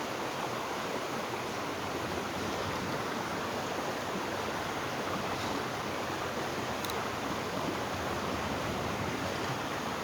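River water running steadily past, an even rushing noise, with a faint click about seven seconds in.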